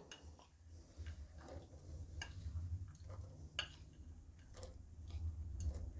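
Faint, scattered light clicks of a metal spoon against a glass bowl as flour-dusted chopped nuts are scraped out into cake batter, over a low steady hum.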